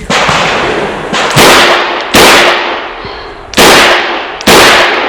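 Five gunshots from a Chiappa Rhino 40DS revolver firing .38 Special, spaced unevenly about a second apart. Each shot cuts in sharply and rings on as it fades.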